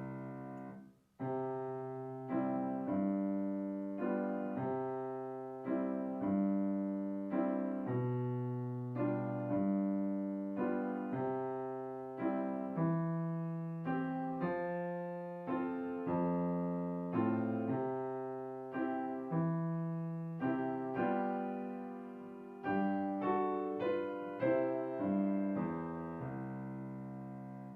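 Solo piano playing a simple song accompaniment: chords and bass notes struck about once a second, each fading before the next. There is a short break about a second in, and the playing stops near the end.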